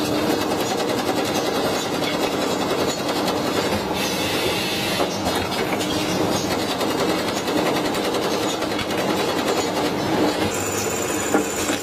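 Steady, dense mechanical clatter of heavy workshop machinery running.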